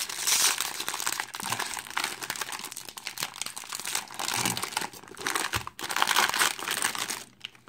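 Foil wrapper of a Bowman Draft baseball-card pack crinkling on and off as it is handled, quieter near the end.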